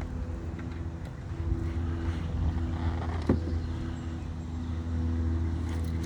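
Steady low engine hum from a motor running at an even speed, with two short knocks about three seconds apart.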